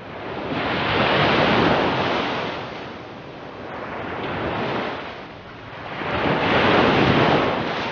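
Ocean surf: waves washing in and drawing back in three slow swells.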